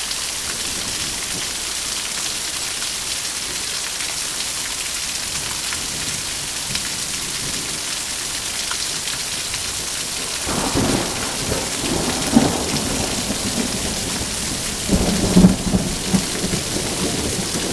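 Steady rain with two rolls of thunder, the first about ten seconds in and a louder one about fifteen seconds in.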